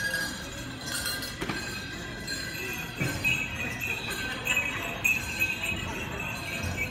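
Metal jingles and bells on powwow dancers' regalia jingling and clinking as the dancers walk about.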